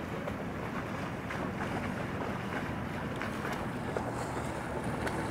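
Boat motor running steadily, with wind noise on the microphone.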